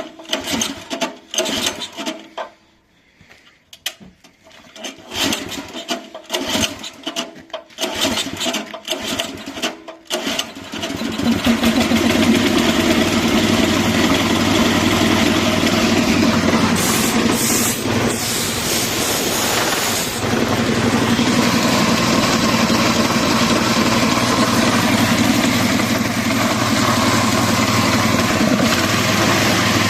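Small petrol engine of an air compressor, unused for about five years, being started: short, uneven bursts for about ten seconds, then it catches and runs steadily.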